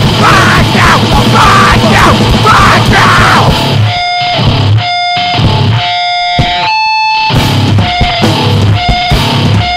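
Two-piece powerviolence band playing: dense distorted guitar and drums with shouted vocals for the first few seconds. About four seconds in, it breaks down to sparse, ringing guitar notes and separate hits.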